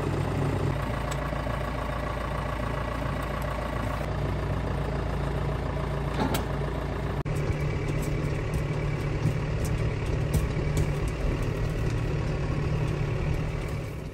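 John Deere tractor's diesel engine running steadily at idle, heard in several spliced takes, so its hum changes abruptly a few times.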